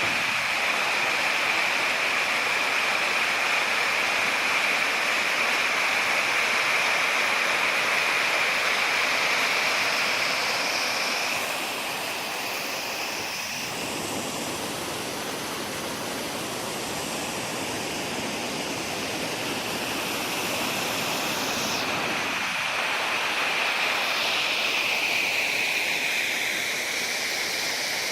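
Steady rushing water, an even continuous noise, a little softer through the middle.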